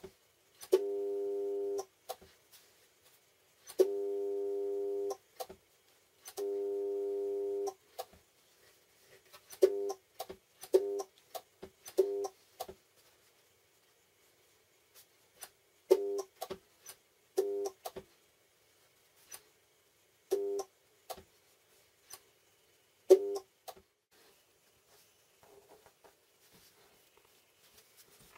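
Home-built spot welder's transformer humming in timed pulses as the timer circuit's relay clicks it on and off. First come three pulses of over a second each, then eight much shorter pulses, each set off by a sharp click, with faint clicks between.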